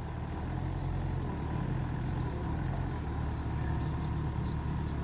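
Excavator's diesel engine running steadily at an even pitch.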